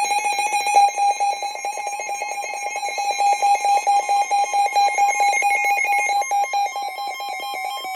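Electronic emergency alert alarm from a weather radio: a loud, rapidly pulsing beep, about ten pulses a second, sounding for an incoming Severe Thunderstorm Warning. A steady alert tone starts faintly underneath in the last couple of seconds.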